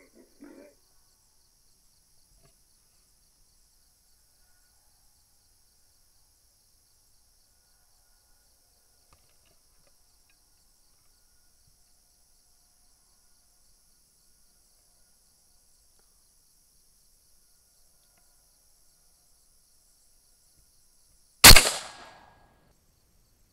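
A single 6.5 Grendel rifle shot near the end, very loud and sudden with a short trailing echo, fired at a feral boar and hitting it. Before it, a few short hog grunts at the very start, then long quiet with only a faint steady high whine.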